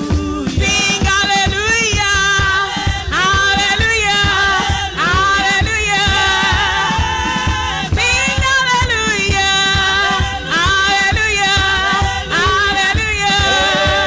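A woman singing a gospel worship song into a microphone, her voice sliding up into held notes, over backing music with a steady beat.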